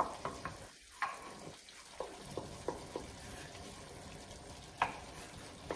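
Wooden spoon scraping and tapping against a glass bowl in a series of light clicks, one louder near the end, as a butter-and-flour roux is scraped into a skillet. Under it, the pan of vegetables and broth sizzles faintly at a simmer.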